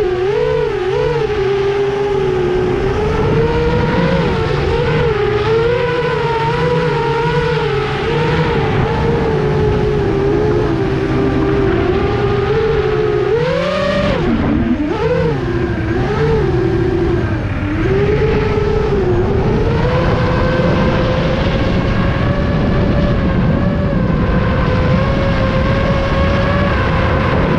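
FPV quadcopter's brushless motors and propellers whining, the pitch rising and falling with the throttle. There is a sharp rise and dip about halfway through, then a steadier, slightly higher pitch.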